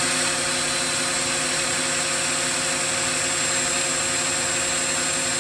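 SAB Goblin electric RC helicopter's brushless motor and main rotor running steadily at full head speed, a high multi-tone whine. The head has been hot-spooled back up out of throttle cut, the sign that the ESC's bailout is working.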